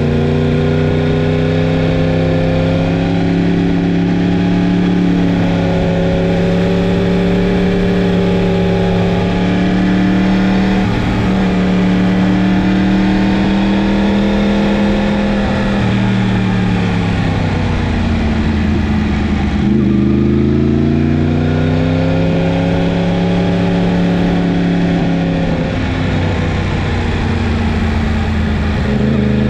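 Yamaha MT-10's crossplane inline-four engine running under way, mostly at steady revs; about two-thirds of the way through the pitch drops, breaks briefly and climbs back up.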